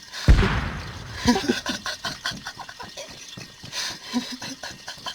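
A grenade in a bonfire goes off with a single loud bang about a third of a second in. Scattered crackling and snaps follow.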